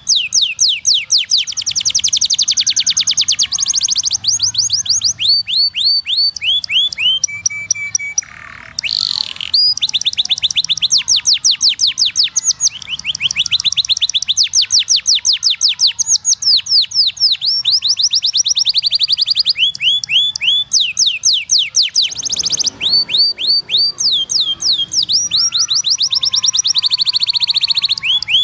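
Domestic canary singing a long song of fast trills, each a run of repeated falling notes, switching to a new trill every second or two. There is a short break about eight seconds in.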